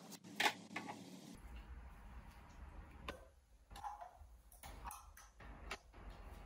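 A run of irregular sharp clicks and light knocks, about nine in all, the loudest about half a second in, as of small hard objects being handled; a low hum comes in about a second in.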